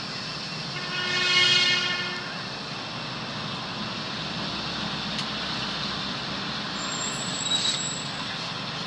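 A vehicle horn sounds once, a steady pitched tone that swells and fades over about a second, above a constant background of outdoor noise.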